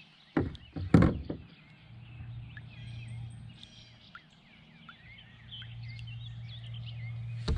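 A hooked sunfish splashing and knocking at the kayak twice, about half a second and a second in, with more knocks near the end. Birds chirp throughout over a steady low hum.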